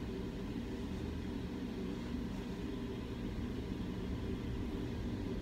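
Steady low background hum, with no handling sounds.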